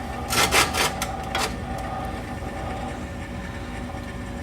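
Corn stove's feed auger turning, a steady low mechanical hum, with a few short scraping clicks in the first second and a half.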